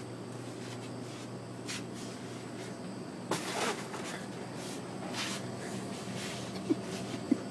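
Glass door of a reach-in drinks cooler being swung open and knocked about, with scattered rattles and a clatter about halfway through, over a steady low hum. Two short sharp knocks near the end are the loudest sounds.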